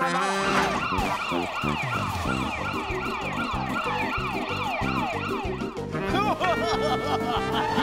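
Cartoon police-car siren wailing rapidly up and down, about three sweeps a second, over background music with a steady beat. About six seconds in the fast wail stops and steadier held tones take over.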